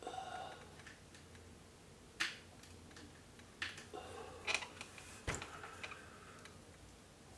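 Small metal parts and tools clicking and tapping against a vintage Singer 348 sewing machine: a short ringing metal clink at the start, then a handful of separate sharp clicks.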